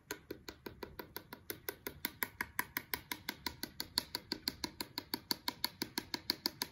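A paintbrush loaded with watered-down paint tapped rapidly against the side of a jar, about six light taps a second in a steady rhythm, flicking paint spatter onto the paper below.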